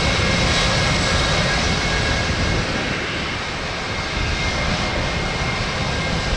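Jet engines of a twin rear-engined airliner running while it taxis: a steady rumble and hiss with a faint high whine.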